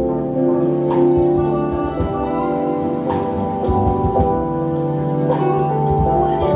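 Live church worship band playing slow music: sustained keyboard chords with drum and cymbal strikes every second or so.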